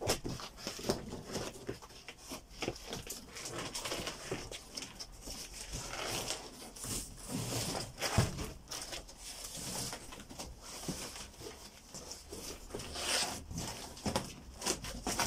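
Corrugated cardboard boxes and sheets being handled, moved and set in place: irregular rustling, scraping and soft knocks, with one sharper knock about eight seconds in.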